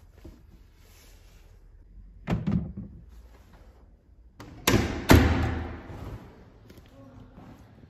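A dull thud about two seconds in, then a door banging twice in quick succession, the second bang the loudest and ringing on for a moment afterwards.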